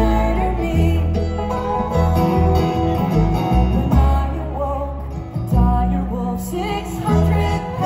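Live bluegrass band playing: banjo, acoustic guitar and fiddle over walking upright bass notes.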